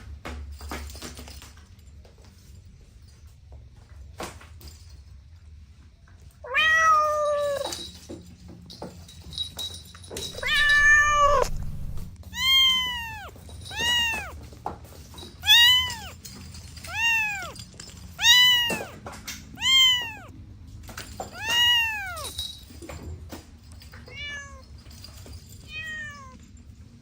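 Cats meowing: two longer, drawn-out meows, then a run of short meows that rise and fall in pitch, about one every second and a half, the last two fainter.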